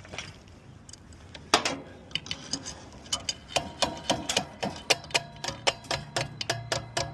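Metallic ticking from the blower motor and wheel assembly being worked on: a few knocks, then even clicks about four times a second with a faint ringing.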